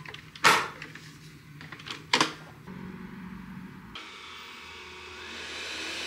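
Two sharp knocks as a robot vacuum is handled, then a low steady motor hum. About two-thirds of the way through it gives way to a different steady hiss that slowly grows louder.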